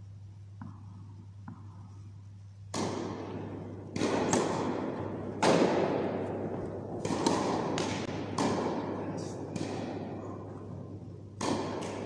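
Tennis rally on an indoor carpet court: sharp racket strikes and ball bounces, about eleven impacts at an uneven pace starting about three seconds in, each ringing on in the echo of a large hall, over a steady low hum.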